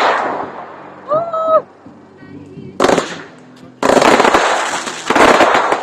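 Fireworks going off in dense crackling volleys: a short burst about three seconds in, then a longer run of rapid bangs and crackle from about four seconds on. A brief shout is heard about a second in.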